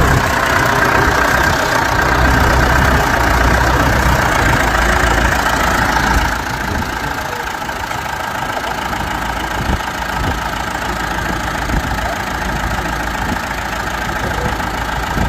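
Massey Ferguson 290 tractor's diesel engine running steadily, dropping slightly in loudness about six seconds in.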